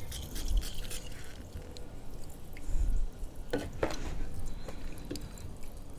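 Aerosol can of carburetor cleaner hissing faintly as it keeps spraying on its own without the button pressed, a sign of a faulty valve, with liquid dripping and spattering. Two sharp small knocks come about three and a half seconds in.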